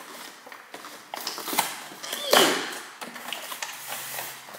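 Cardboard yogurt multipack and plastic Chobani cups being handled on a kitchen counter: scattered light knocks and rustles, with one louder short sound with a falling pitch about halfway through.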